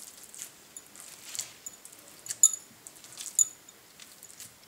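Metal bangles clinking on a wrist while a palm presses and mashes fresh paneer on a wooden cutting board. Short jingling clinks and rubbing come about once a second, with each stroke.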